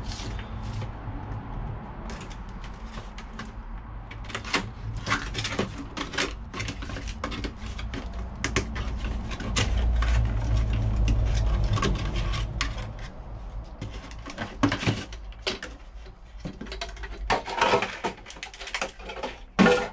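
Packaging being handled as an item is unboxed: irregular rustling, clicks and knocks of cardboard and plastic. A low rumble swells for a few seconds around the middle.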